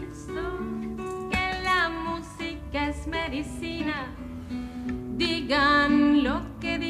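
A folk song on strummed acoustic guitar, with a singer's voice carrying a melody over it.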